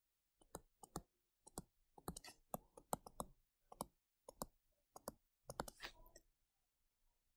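Faint, quick, irregular clicking of calculator keys being pressed as a division is punched in. The clicks stop about a second before the end.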